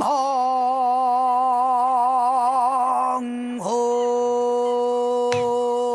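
Male pansori singer holding long sung notes with a wide vibrato: one drawn-out note, a short break about three and a half seconds in, then another long note. A single sharp drum stroke comes near the end.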